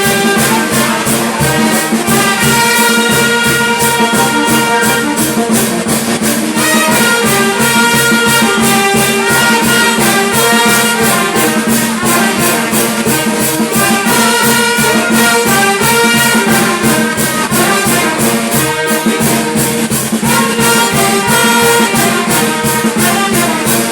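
Brass band playing: trumpets and trombones holding and changing sustained notes over a steady, driving percussion beat.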